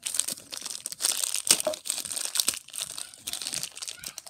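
Plastic blind-bag packet crinkling in the hands as it is pulled and torn open, in irregular crackles.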